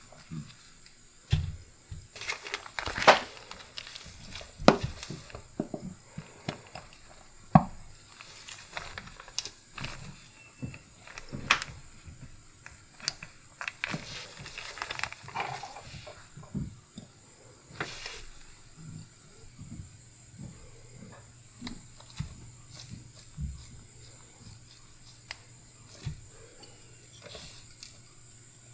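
Light handling noise at a watch bench: scattered small clicks and taps of tweezers and gloved fingers on a pocket watch dial and movement, with thin plastic crinkling around the middle. A faint low hum comes in during the second half.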